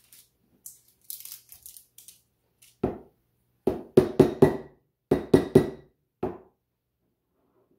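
A glass jar of coconut oil with a metal screw lid handled in the hands: a light crinkly rustle about a second in, then a run of about nine sharp knocks in quick groups, with a faint metallic ring in them.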